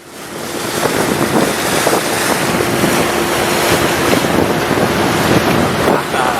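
Wind buffeting the microphone and water rushing past a moving banka, with a faint steady hum that fits the boat's engine. Fades in over the first second.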